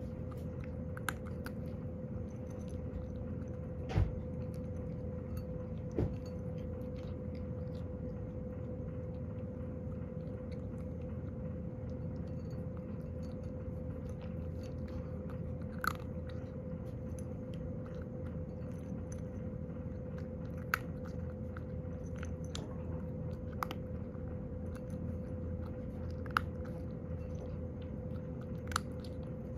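Cat eating dry kibble from a ceramic bowl: steady crunching and chewing, with a few short sharp clicks scattered through, over a steady hum.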